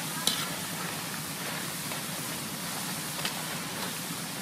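Taro sticks deep-frying in hot oil in a wok: a steady sizzling hiss, with a sharp click about a third of a second in and a fainter one about three seconds in.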